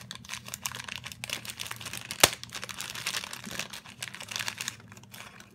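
Packaging crinkling and tearing as a small package is opened by hand, with dense irregular crackles and one sharp snap a little over two seconds in, dying away near the end.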